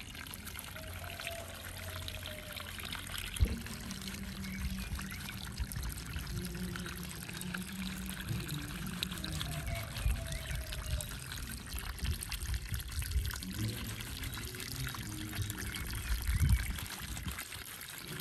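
Water being poured and trickling over a goat during its bath, running steadily with scattered knocks and handling noises; one sharp knock stands out about three and a half seconds in.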